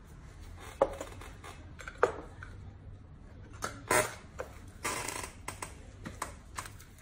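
Small objects being handled: several sharp clicks and taps, about one, two and four seconds in, with short bursts of rustling around the fourth and fifth seconds. These come from the technician's instruments and supplies, cotton and a small box, in gloved hands.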